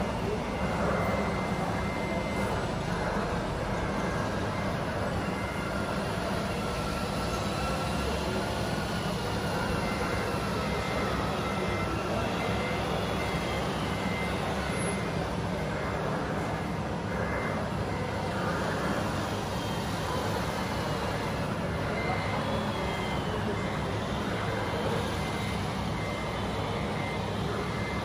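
Radio-controlled model truck running, its sound unit playing a truck engine with a reversing alarm beeping at an even beat, in stretches.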